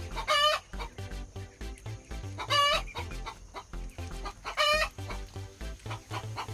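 Farm poultry calling loudly three times, about two seconds apart, with many short clicks in between.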